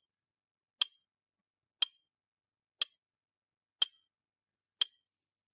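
Countdown timer sound effect: a sharp clock-like tick once a second, five times, each with a brief high ring.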